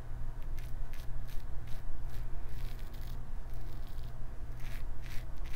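Gillette Travel Tech double-edge safety razor with a Personna Lab Blue blade scraping through lathered stubble on the neck in a series of short, crisp strokes, over a low steady hum.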